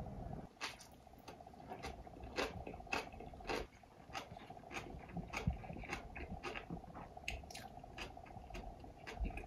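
A person chewing and biting into aged-kimchi-wrapped rice topped with salmon, with irregular wet, crunchy clicks a few times a second over a faint steady hum.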